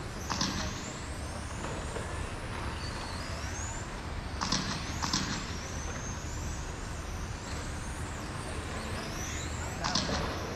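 Several electric 1/10-scale RC cars racing on a carpet track, their motors whining high and gliding up and down in pitch as they speed up and slow for the corners, with a few short sharp noises now and then.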